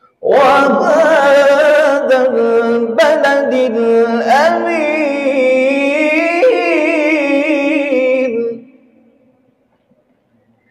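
A man reciting the Quran in melodic tajweed style, one long unbroken phrase with a wavering, ornamented pitch, stopping about eight and a half seconds in.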